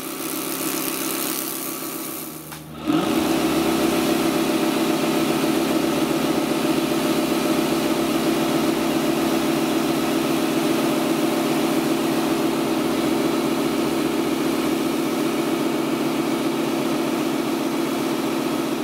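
Bosch Fontus 18V cordless pressure washer running on its maximum setting, the water jet hissing. About three seconds in, the pump's hum rises briefly in pitch and then holds steady under the hiss of the spray.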